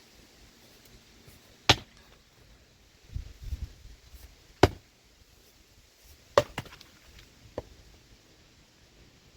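Axe strikes splitting firewood: three sharp, loud chops about two to three seconds apart, followed by a lighter knock.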